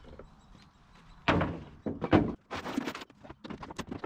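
Scrap boards being thrown down: a heavy wooden thunk about a second in, then several lighter knocks and clatters.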